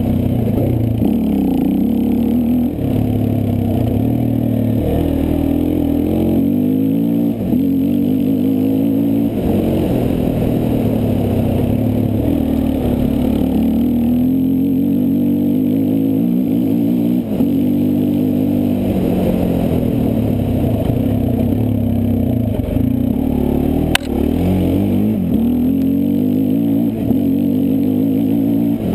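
Enduro quad (ATV) engine heard from on board, revving up and down as it is ridden hard over a grass track, its pitch climbing and dropping with the throttle and gear changes, with a few brief dips where the throttle is lifted. A single sharp knock about two-thirds of the way through.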